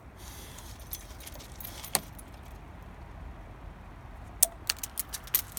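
Sharp clicks and clinks of hard objects being handled: one about two seconds in, then a quick run of several near the end, over a low steady rumble.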